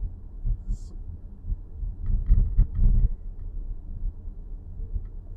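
Low rumble inside the cabin of a 2023 Nissan X-Trail e-POWER, with a cluster of short clicks and rattles from the dashboard about two to three seconds in: the abnormal dashboard noise being recorded.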